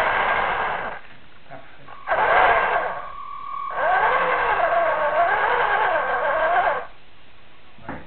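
Radio-controlled toy tank running in three bursts as it drives, a whining mechanical sound whose pitch wavers up and down with its speed. The last burst, about three seconds long, is the longest.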